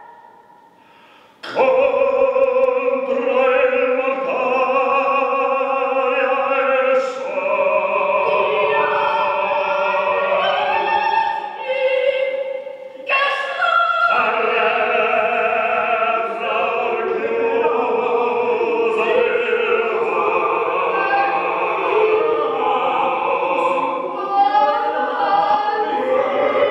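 Operatic singing of an aria extract: a trained voice sings long held notes that change pitch. It comes in sharply about a second and a half in after a near-silent pause, with a short break about halfway through.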